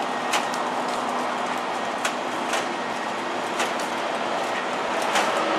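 Snack packets being loaded into a vending machine's spiral rows: a few sharp light clicks and crinkles of plastic wrappers, over a steady background hum.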